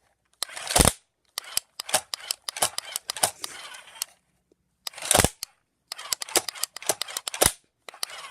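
Sticky slime being squeezed and handled: a run of sharp pops and crackling clicks, the loudest about a second in, around five seconds and again at about seven and a half seconds.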